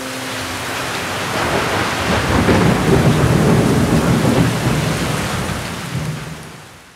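Rain falling steadily with a low rolling rumble of thunder. It swells about two seconds in, holds, then fades away near the end.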